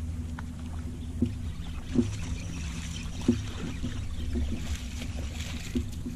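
A hooked bass splashing and thrashing at the surface beside an aluminium jon boat as it is reeled in, loudest from about halfway through. Under it runs a steady low hum, with a few sharp knocks on the boat in the first half.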